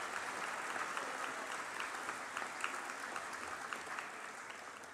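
An audience applauding, the clapping dying down near the end.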